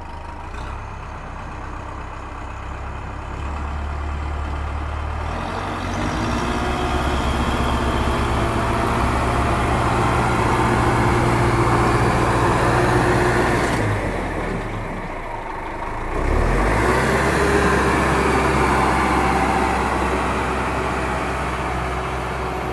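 Tractor engine running, growing louder over the first few seconds, dipping briefly a little past the middle, then picking up again and slowly easing off.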